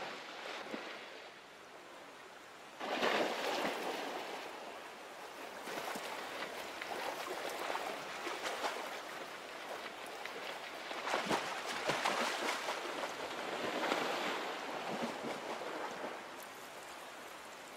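River water running, with a few louder surges of splashing as a grizzly bear wades and lunges after chum salmon.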